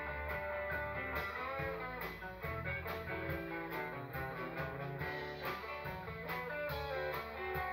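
Live rock band playing: electric guitars and bass over drums keeping a steady beat of about two hits a second.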